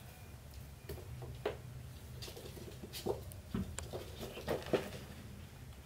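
Cats scuffling on a wooden floor: irregular soft taps and scrapes of paws, thickest in the second half.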